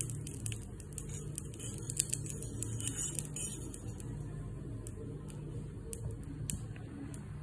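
Light metallic clicks and scrapes of a tiny metal spatula against miniature cookware and a stone grinding slab, most frequent in the first few seconds, over a steady low hum.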